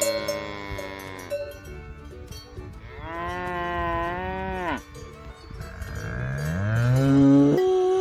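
Cattle mooing: one call ends about a second in, a long wavering moo comes around the middle, and a loudest moo rises in pitch near the end.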